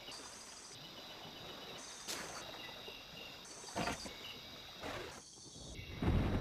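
Bornean elephants wading across a river at night: water splashing and sloshing in a few short surges, the biggest about four seconds in, over steady chirping of night insects. Near the end a low rush of wind comes in suddenly.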